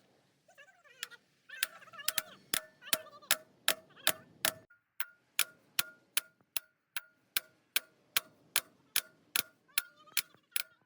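Sharp metallic ticks or strikes repeating evenly about two and a half times a second, each with a brief ring.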